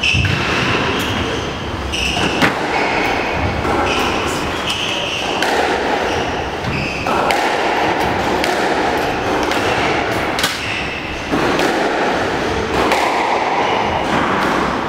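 Squash rally: the ball is struck by rackets and smacks off the walls again and again in sharp knocks, while the players' court shoes squeak in short bursts on the wooden floor.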